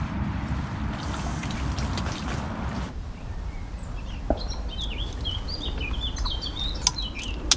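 Wind rumbling on the microphone, and from about three seconds in a small bird singing in quick, high chirps. A couple of sharp clicks come near the end.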